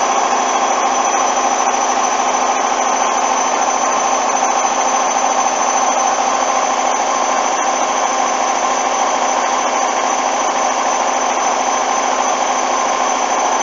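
Hoover washing machine drum spinning at high speed during a spin cycle: a loud, steady whir with a high-pitched whine over it.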